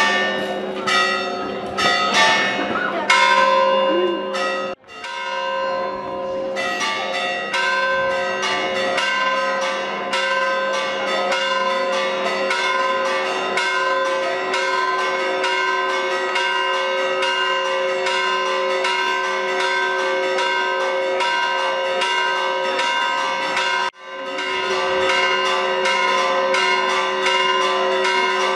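Church bells ringing a fast, continuous festive peal, the strikes following closely one after another and overlapping as they ring on.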